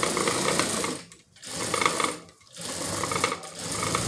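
Industrial sewing machine stitching through a thick crocheted rug in short runs, stopping briefly twice along the way.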